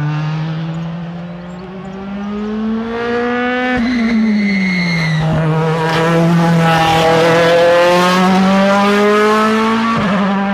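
A rally car's engine, pulling hard toward the camera with its pitch climbing. About four seconds in the pitch drops as the driver lifts and brakes for the bend. It then accelerates away and passes close, loudest around six to nine seconds.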